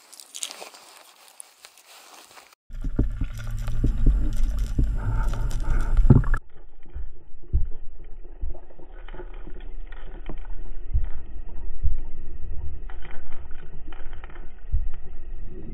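Faint handling noise at first, then, about three seconds in, the muffled underwater sound from an action camera in its housing moving through the water: a loud low rumble of water flow for a few seconds, then a quieter steady rush with scattered clicks.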